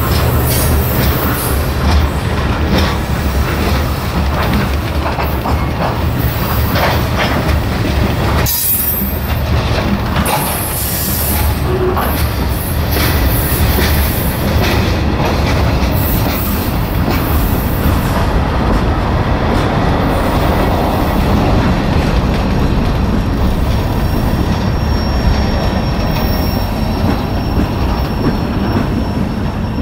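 Freight train of covered hopper cars rolling past close by: steady wheel-on-rail rumble with repeated clicks of wheels passing over rail joints.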